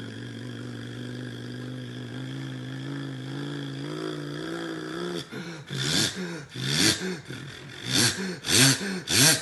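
A man imitating a bus engine with his voice: a steady low humming drone whose pitch creeps up about four seconds in, then from about five seconds a series of loud swooping rises and falls, like an engine revving.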